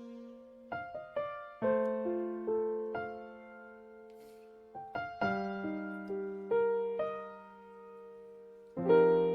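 Slow, gentle piano music: single notes and chords struck a few at a time and left to fade, with a short lull in the middle and a fuller chord struck near the end.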